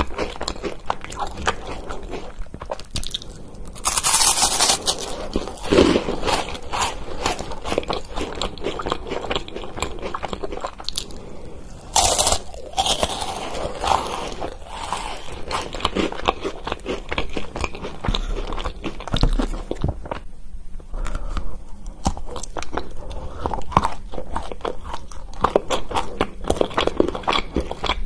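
Biting into a chocolate wafer bar and chewing it: crisp, crackly crunching throughout, with the loudest bite crunches about four seconds in and again about twelve seconds in.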